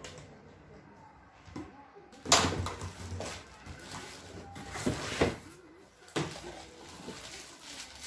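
Handling of cardboard packaging and plastic wrap: rustling and scraping, with a sharp knock about two seconds in and a few more bumps and rustles after it.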